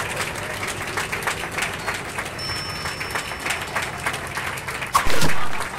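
Audience applauding after a song, many hands clapping steadily, with a sudden much louder sound about five seconds in.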